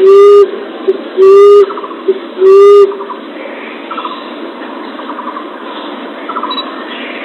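Emerald dove (punai tanah) call: three loud, low, distorted hoots about a second apart, then the calling stops, leaving a hissy background with a few faint chirping trills.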